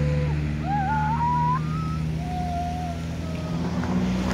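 A car engine running steadily, with a wavering tune gliding up and down over it during the first few seconds.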